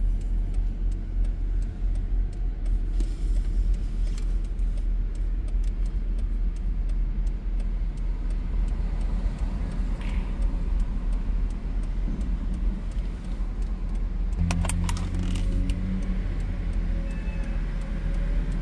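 Steady low rumble of a car idling and city traffic, heard from inside a car stopped at a light. About fourteen seconds in, a deeper engine hum joins, with a few sharp clicks.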